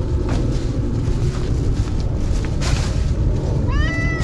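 Steady wind rumble on the microphone. Near the end a tabby-and-white stray cat gives one short meow that rises and then holds its pitch.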